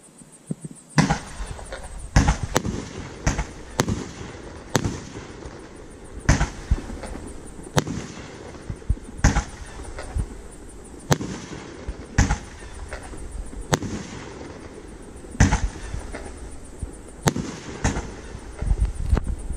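A Danger Doll Fireworks Sky Monster 10-shot firework cake firing its shots one after another. Each shot gives a launch thump and a sharp bang as it bursts overhead, about twenty loud reports in all, roughly one a second, starting about a second in.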